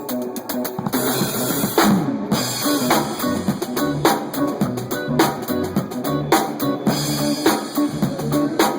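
A live band playing. A guitar part runs alone at first; about a second in the drum kit and bass come in on a cymbal crash, then keep a steady beat with a sharp snare hit about once a second.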